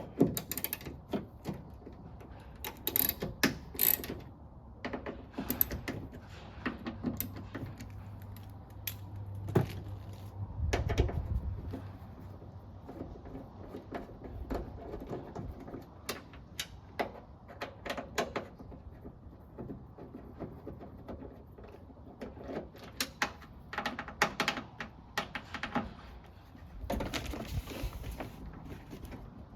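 Hand tool with a Torx T30 bit loosening the screws that hold the door lock actuator in a car door, with irregular metallic clicks, clinks and rattles, and a denser stretch of rattling near the end.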